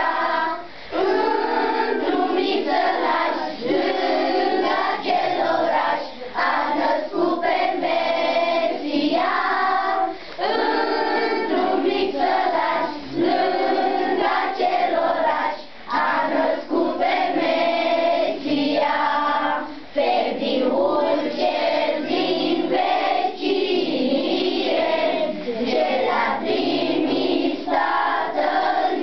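A group of children singing a song together in chorus, phrase after phrase with short breaks for breath.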